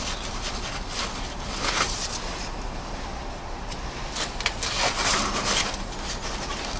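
Intermittent rustling and scraping with a few sharp clicks, from hands working at the ABS sensor wiring and plastic connector in a car's front wheel well. The busiest handling comes about two seconds in and again from about four to five and a half seconds in.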